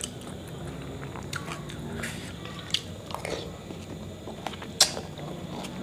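Close-up eating sounds: slurping and chewing mouthfuls of chicken noodles, with scattered light clicks of a metal fork against the plate. There is one sharper click about five seconds in.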